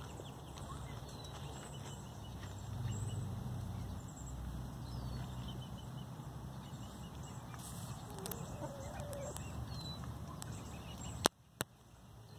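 Backyard chickens clucking softly, with a few faint high chirps, over a steady low rumble. Two sharp clicks come near the end.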